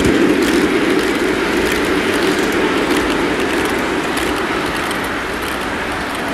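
Model train's passenger cars rolling past on the layout track, a steady rumble of wheels on rail that slowly fades as the train moves away.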